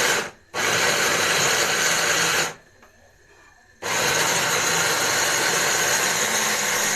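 Hand blender motor running in three bursts, switched off and on again, grinding onion, tomato and pepper: a short burst at the start, a two-second run, then a longer run from about four seconds in.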